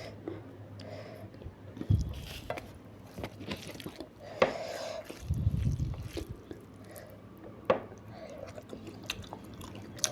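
Close-miked wet chewing and mouth sounds of eating rice with palak paneer curry, with sharp lip smacks and clicks every second or two and a couple of low thuds.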